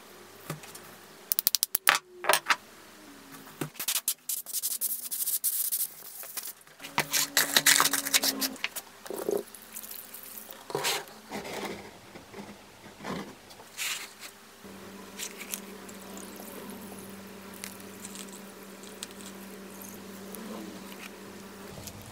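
Handling sounds of wire brush wheels on a wooden workbench: scraping rustles and sharp knocks in irregular bursts. From about two-thirds through, a steady low hum takes over with only light ticks.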